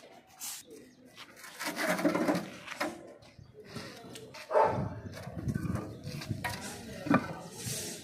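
Concrete blocks knocking and scraping as they are lifted and set down onto a stack, with a sharp knock about seven seconds in.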